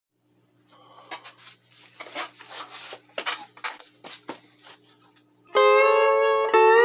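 A faint amplifier hum with scattered clicks and scrapes as the steel bar and picks are handled, then about five and a half seconds in a Recording King lap steel guitar chord rings out loudly through a Gorilla GB-30 bass amplifier, the slide bar moving it to a new chord about a second later.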